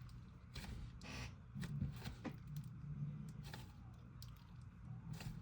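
Slime being squished and worked by hand, faint irregular little clicks and pops.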